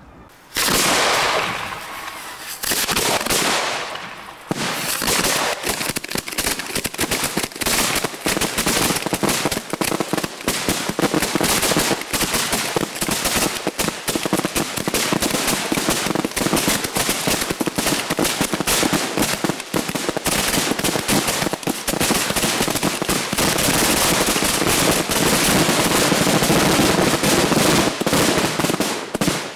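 Ground-fired fireworks cakes going off in a dense barrage of rapid bangs and crackle. It starts suddenly about half a second in, dips briefly around four seconds, then runs almost without a break.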